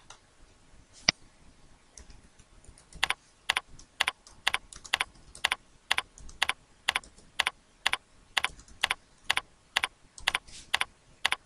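Computer keyboard typing: separate keystrokes at a slow, even pace of about two a second, with a single sharper click about a second in.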